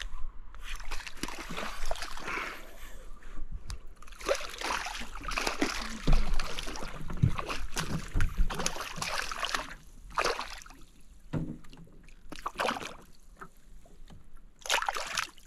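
A hooked black crappie splashing and thrashing at the water's surface beside the boat, in rapid noisy bursts of water, then separate splashes near the end as it is grabbed by hand.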